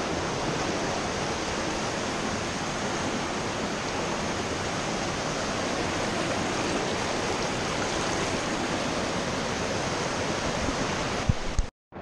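Whitewater creek rapids rushing close by: a steady, even rush of churning water that cuts off abruptly near the end.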